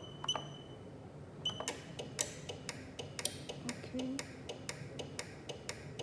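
Wireless garage-door keypad giving a short electronic beep as a key is pressed. From about a second and a half in comes a run of sharp, uneven clicks, about three or four a second.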